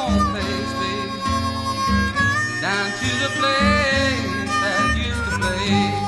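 Blues harmonica playing bent, sliding phrases over a steady, rhythmic guitar backing, in an instrumental break of a country-blues song.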